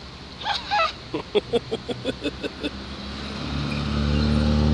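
A motor vehicle's engine drone, swelling as it approaches in the second half. Before it comes a brief squeal, then a quick run of about a dozen short pitched cries, about seven a second.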